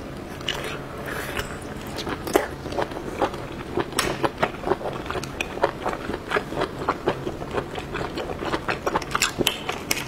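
Close-miked eating sounds: wet chewing of seafood bitten off a skewer, then many sharp crackles and clicks as the shell of a cooked giant river prawn is cracked and peeled by hand.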